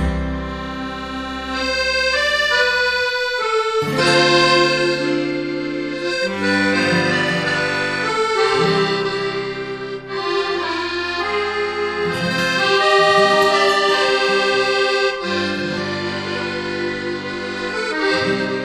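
Instrumental background music: a melody of long held notes over sustained low chords, with short breaks between phrases.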